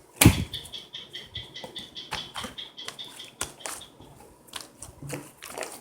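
Slime being squeezed and worked by hand, a sharp thump near the start followed by a string of small sticky clicks and pops. A faint steady high tone runs underneath for the first few seconds.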